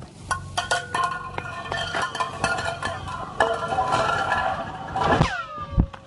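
Ice dropped into a deep borehole in Antarctic ice, making strange laser-beam-like noises: a quick run of clicks and pings, each ringing on as a tone. About five seconds in, a cluster of tones sweeps steeply down in pitch and trails off.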